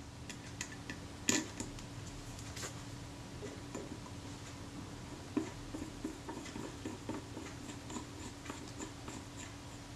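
Faint, scattered small metal clicks and ticks from handling a Kodak Retina IIa's film advance lever and driving its screw with a small screwdriver, the sharpest about a second in and again about halfway through, over a faint steady hum.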